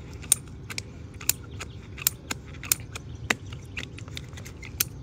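Hand-held PVC pipe cutter working through a 3/4-inch PVC pipe, giving sharp clicks roughly two a second, unevenly spaced, as its handle is squeezed.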